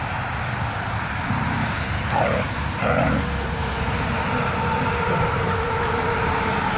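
Steady low rumble of background noise, with a steady droning tone that comes in about three seconds in and holds.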